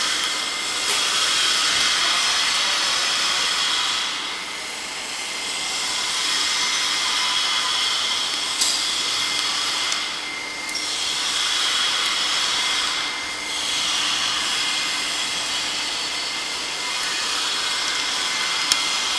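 Film slitting-rewinding machine running at speed on an inverter-driven motor: a steady high rushing hiss of the moving film web and rollers with a thin steady whine, easing briefly about three times.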